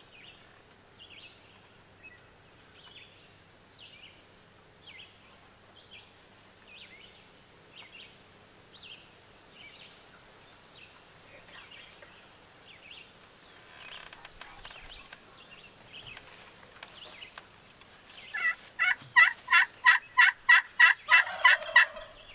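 Hen turkey yelps on a friction turkey call worked with a striker: a loud run of about a dozen evenly spaced yelps, some three a second, starting near the end and closing on a lower note. Before it, a small bird chirps faintly about once a second.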